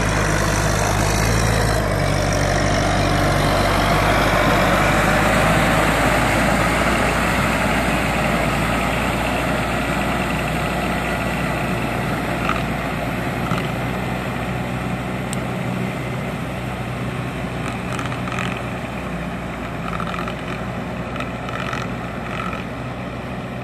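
Farm tractor engine running steadily as the tractor works through a flooded rice paddy. It grows gradually fainter as the tractor moves away.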